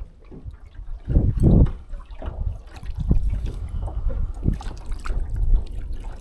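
Water splashing and dripping as a hooked trout is brought up to the side of a small boat, with a louder burst about a second in.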